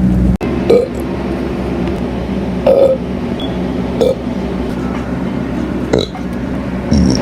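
A person burping: about five short burps spaced a second or two apart, over a steady low hum.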